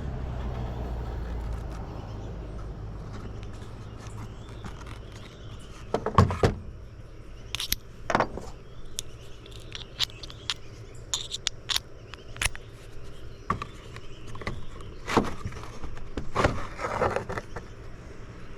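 Irregular metal clicks, knocks and scraping from hand tools working on the metal parts of an old radio during disassembly, with a louder knock about six seconds in. A low rumble is strongest in the first couple of seconds.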